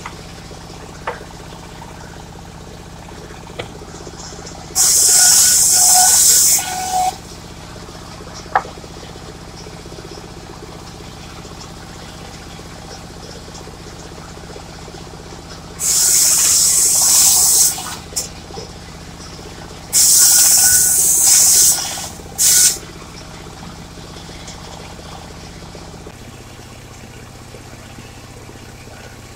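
Portable circular sawmill's engine running steadily, with three loud bursts of harsh, high-pitched hissing noise, each a second or two long, as the blade cuts into mahogany. The engine note drops slightly near the end.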